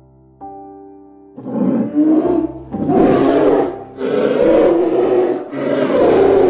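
Four deep, growling roars from a large animal, each about a second long, in quick succession after a brief lull. Soft background music with held notes plays underneath.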